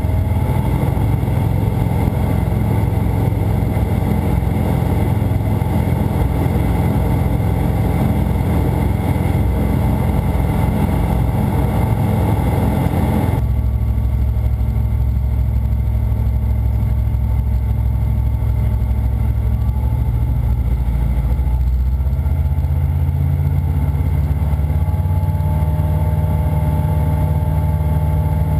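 Gobosh 700 light sport aircraft's Rotax 912 flat-four engine and propeller, heard from inside the cockpit, running at high power and then pulled back to idle about halfway through: the sound drops suddenly to a lower, steady idle drone.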